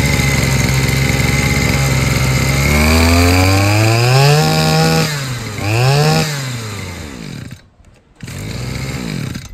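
A 22cc Stihl two-stroke brush cutter engine running steadily. It is revved up and held at speed, eased off and blipped once more, then winds down and stops about seven and a half seconds in.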